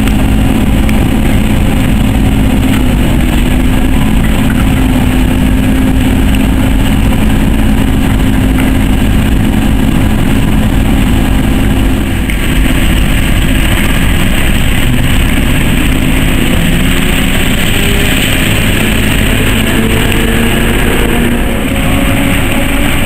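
Diesel shunting locomotive's engine running with a steady low drone, its note rising slightly near the end.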